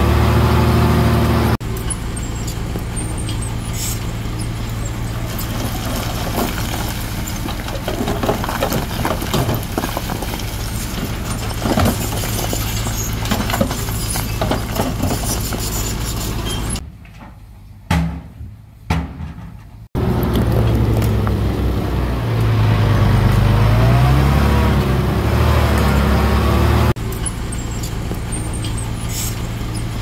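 Heavy diesel construction machinery at work, in several cut-together stretches. In some the engine's pitch rises and falls as it revs; in others there is rough mechanical noise with scattered knocks. For about three seconds past the middle the sound drops away to a few faint knocks.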